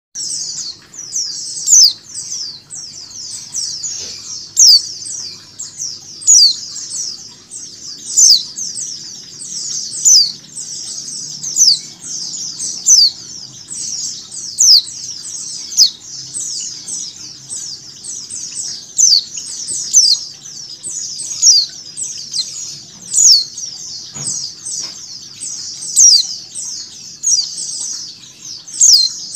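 White-eyes (pleci) calling: a female's repeated short 'cal' call ('ngecal') over the massed chirping of a flock of white-eyes. The sound is a dense, unbroken stream of short, high, falling chirps, with a louder chirp standing out every second or two.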